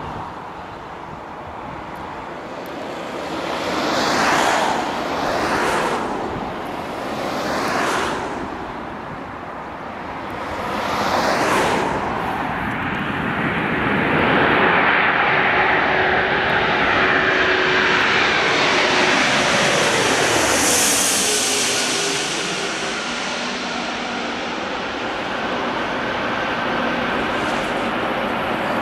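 Four-engine Airbus A340 jet airliner on landing approach passing low overhead: its engine noise builds from about twelve seconds in, peaks with whining tones that fall in pitch as it goes over, then carries on steadily as it moves away. Several short gusts of wind whoosh over the microphone in the first dozen seconds.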